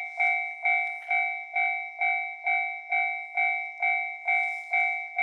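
Japanese railway level-crossing alarm ringing: a repeating two-tone electronic ding, about two strikes a second, each one fading before the next.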